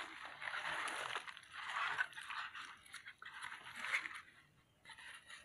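Stiff sansevieria leaves and dry plant litter rustling and crunching as the plant clump is handled, in several bursts that die down near the end.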